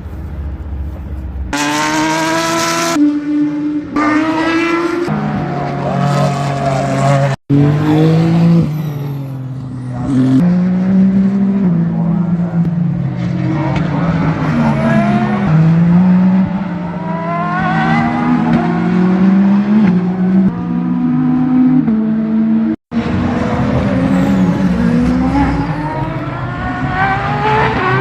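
Endurance-racing prototype and GT race cars accelerating past trackside, their engine notes climbing through the revs and dropping back at each upshift, one car after another. The sound cuts out sharply twice, at about seven and twenty-three seconds in.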